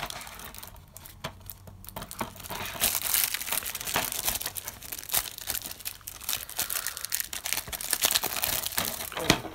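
Clear plastic shrink-wrap being peeled, torn and crumpled off a DVD case: irregular crinkling and crackling, quieter for a moment about a second in, then busier, with one sharp crackle near the end.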